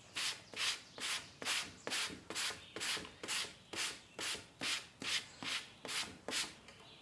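Sandpaper rubbed by hand back and forth over the epoxy-coated tip of a wooden kayak paddle, about two even scratchy strokes a second, stopping shortly before the end. This is the smoothing stage after rough sanding, working toward a better finish.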